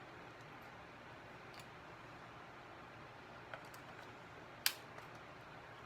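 A few faint clicks and one sharper click about four and a half seconds in, over a steady low hiss: hard plastic parts of a battery pressure washer being handled and fitted.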